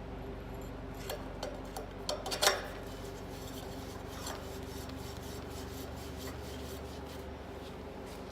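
Steel drill core barrel parts being handled: a cluster of metal clinks and scrapes, loudest about two and a half seconds in, then a few faint ticks over a steady low hum.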